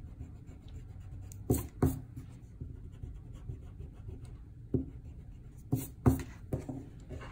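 An eraser rubbing pencil lines off drawing paper, a soft continuous scrubbing broken by about five short, sharp scuffs in quick strokes, the loudest as a pair near the end.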